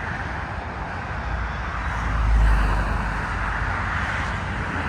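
Jet airliner taking off, a steady rushing engine noise that swells lower and louder about two and a half seconds in.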